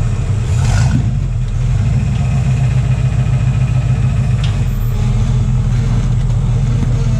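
Jeep rock crawler's engine running at low revs, briefly louder just under a second in, with a faint knock about halfway.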